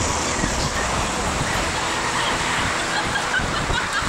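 Steady rushing outdoor noise with no single loud event, with a few faint short chirps over it.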